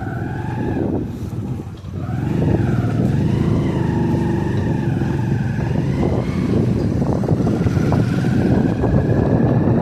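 A heavy machine's engine running loudly, with a whine that wavers up and down in pitch. The sound drops briefly about two seconds in, then picks up again.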